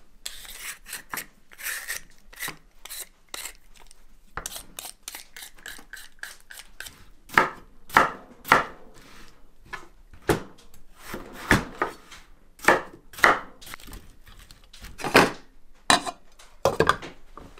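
A vegetable peeler scraping the skin off a raw potato in short strokes, then a kitchen knife cutting through the potato and knocking on a wooden cutting board in a string of irregular chops. The chops are louder than the peeling.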